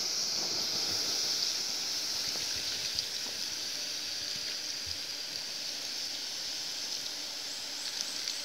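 Water poured from a plastic bottle, trickling onto smouldering campfire embers to put the fire out, over a steady high hiss.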